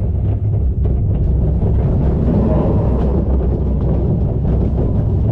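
Roller coaster train running along its track, ridden from onboard: a steady low rumble of the wheels with wind buffeting the microphone.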